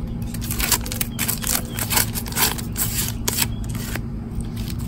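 Blue tape being peeled and unwound off a hand, crackling and ripping in quick irregular spurts.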